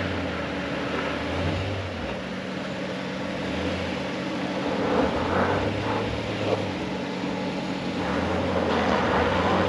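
Honda V6 engine running at low speed on a dirt hill climb. Its steady low hum swells and eases under a broad hiss.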